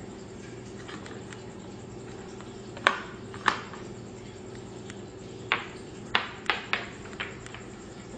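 Motorised toy trains running on plastic track, with a steady low motor hum. Sharp plastic clacks come twice about three seconds in, then five more in quick succession in the second half.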